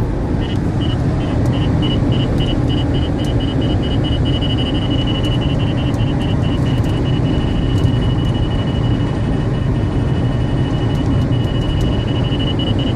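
Radar detector alerting on Ka-band police radar: rapid high beeps that run together into a nearly continuous tone through the middle, fade, then break back into rapid beeps near the end. Underneath is steady car road noise heard inside the cabin.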